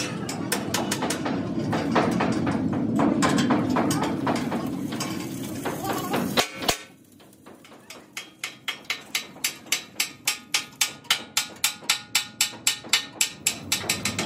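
Rapid, even hammer blows on a steel tractor blade, about three or four a second, growing louder, in the second half. Before that, a steady low rumble with scattered metallic clicks.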